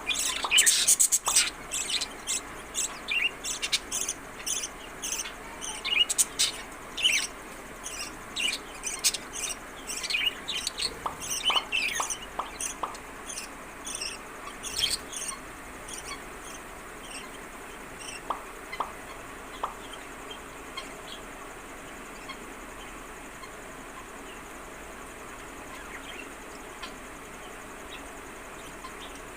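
Budgerigars chirping at a feeding: a dense run of quick, high-pitched calls that thins out about halfway through and mostly stops for the last third.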